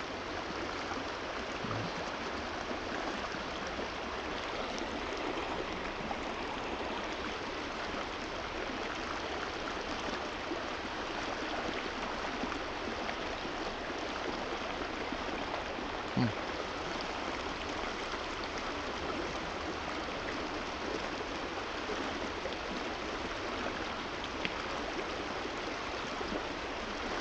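Steady rush of flowing stream water, with one brief low thump just past halfway.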